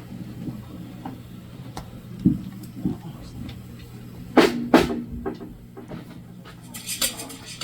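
Drum kit struck a few scattered times over a steady low hum: light knocks, then two loud ringing drum hits about halfway, and a cymbal wash near the end.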